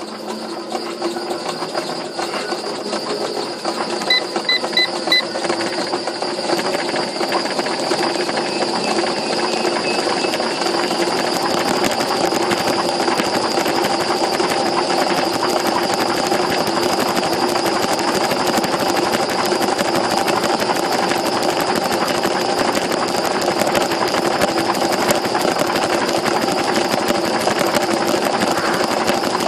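Treadmill motor running and getting louder over the first several seconds, then holding a steady whir. Four quick electronic beeps from its console come about four seconds in, as if the speed is being stepped up.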